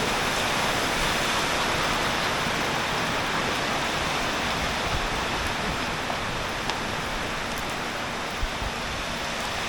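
Heavy tropical downpour: a steady hiss of rain pouring down, with a few faint ticks of drops.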